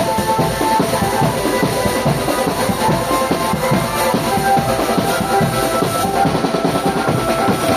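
Marching drum band playing: dense, fast drumming on snare and bass drums under a melody of held notes.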